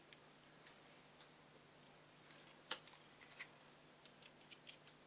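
Faint, scattered light clicks and taps of paper and cardstock being handled and pressed down by hand, the loudest a little under three seconds in.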